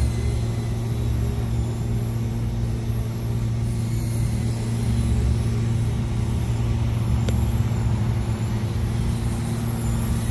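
Small FPV quadcopter in flight, its motors a faint high whine that wavers up and down with the throttle, over a steady low hum. A single sharp click about seven seconds in.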